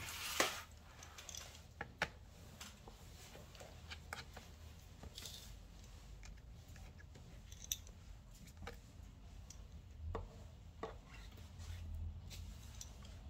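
Faint, irregular clicks and small taps of precision repair tools working at an opened iPad Pro's screen-connector area, roughly one every second, over a faint low hum.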